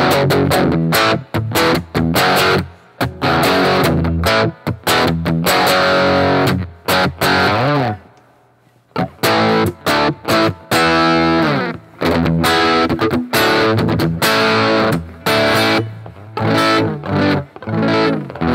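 A 2013 Rickenbacker 330 electric guitar with toaster pickups, played with overdrive, chugging through a riff of short, choppy chord stabs. It stops for about a second near the middle, then resumes with a bent note before more stabs.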